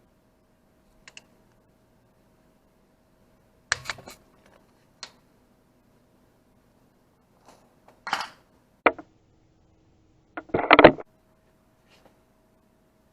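Scattered metallic clicks and clinks of hand tools and parts being handled during a motorcycle gearbox oil change. There are single taps, a short rattle about eight seconds in, and the loudest burst of clattering near the end.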